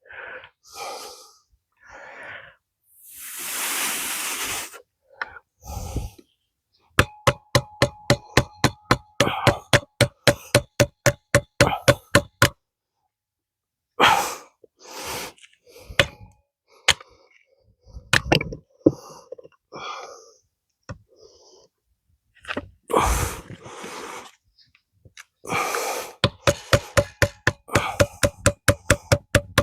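A hammer tapping steadily on steel, about three blows a second, in two runs, driving a stuck part out of an old Ford manual transmission. Between the runs come scattered clanks and knocks of tools and parts, and a brief hiss near the start.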